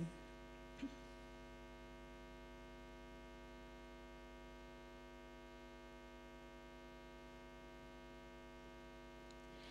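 Near silence with a steady electrical mains hum, a buzz with many evenly spaced overtones. A brief faint sound comes about a second in.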